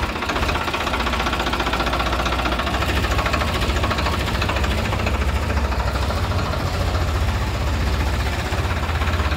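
Farmtrac 45 Supermaxx tractor's three-cylinder diesel engine running steadily as the tractor is driven, with a crisp, sharp note.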